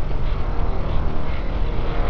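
Dark ambient drone: a steady, deep rumble with a noisy hiss above it.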